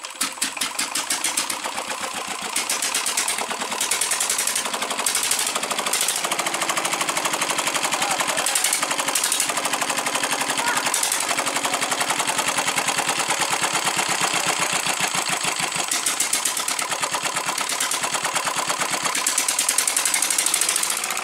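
Old single-cylinder diesel engine, spun by an electric motor through a flat belt, catching and running on its own with a rapid, even knocking beat; the sound grows louder in the first few seconds as it picks up.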